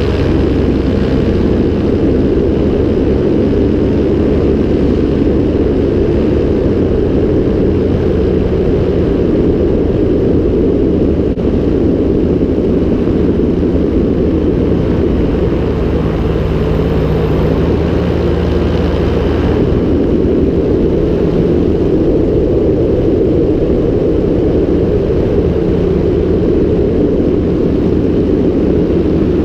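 Steady, loud drone of a propeller aircraft's engine with rushing air, holding even throughout with a low hum.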